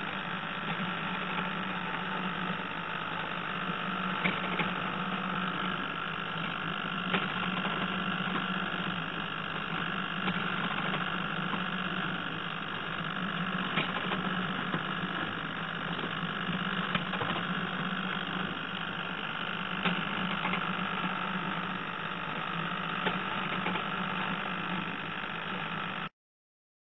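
Wooden cat automaton running under a small belt-driven motor: a steady mechanical hum with a light click about every three seconds.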